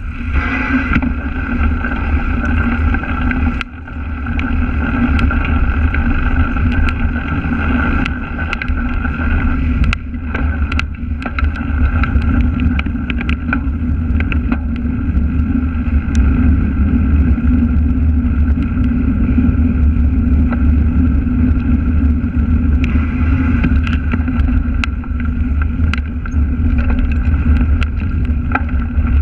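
Cyclocross bike ridden hard over grass and a muddy track: a steady, loud rumble of wind and tyre noise on the microphone, with many sharp rattles and knocks as the bike jolts over bumps.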